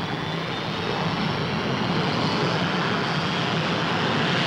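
Jet aircraft on its take-off run, its engine giving a steady rushing noise that grows a little louder about a second in, with a faint high whine sliding slightly down in the first second.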